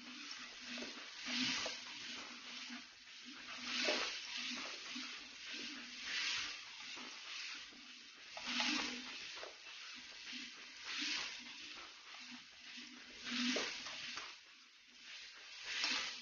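Chopped onions and tomatoes sizzling in a wok while a plastic spatula stirs and scrapes them. The hiss swells with each stroke, about every two and a half seconds.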